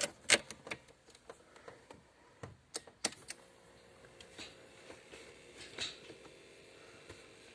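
A few sharp clicks and knocks of hands working on the car, the loudest just after the start and a small cluster about three seconds in, then sparse faint clicks. A faint steady hum comes in about halfway through.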